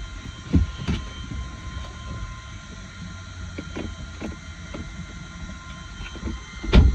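Knocks and rustling inside a parked car over a steady low hum, with a louder thump near the end.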